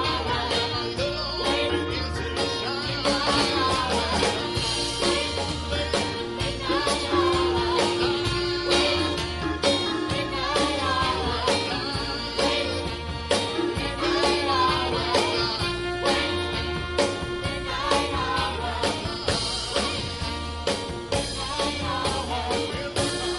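Live band with a saxophone and trumpet section, guitar and drum kit playing a song, with a lead singer and backing vocalists singing.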